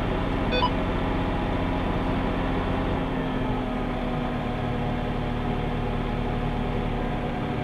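Tractor engine running steadily, heard from inside the cab, with a constant mechanical drone; the deep low rumble drops off about three seconds in.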